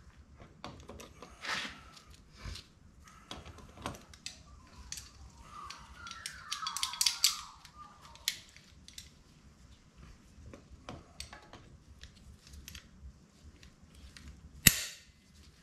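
Scattered metallic clicks and clinks of vice grips being handled and adjusted, with a rattling run of clicks about seven seconds in. Near the end comes one sharp metallic snap as the locking pliers clamp shut on the ridges of a TH350 transmission's front pump.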